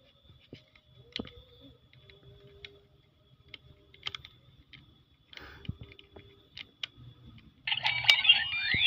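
Small plastic clicks and taps as the SG Megalodon Vistamp is handled and pressed onto the Revice Driver toy belt. About eight seconds in, the belt starts its loud electronic sound effect with a sweeping tone.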